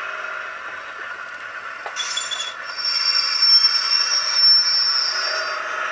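Sampled Deltic diesel engine sound from a CT Elektronik SL75 DCC sound decoder, played through a tiny sugar-cube speaker in an N gauge Graham Farish DP1 model locomotive. The engine revs up with more growl and grows louder about two and a half seconds in, as a steady high-pitched whine joins it for about three seconds.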